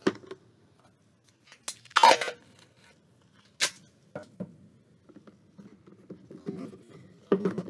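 Thick duct tape being handled and pressed onto a plastic soda bottle: a short tearing rip about two seconds in, a sharp click a little later, and soft scattered rustles and taps.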